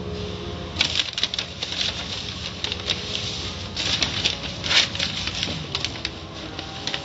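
Soft-cloth strips of an automatic car wash slapping and swishing over a car's windshield with spraying water, heard from inside the car. A rapid, irregular patter of slaps starts about a second in and eases off near the end, over a steady low hum.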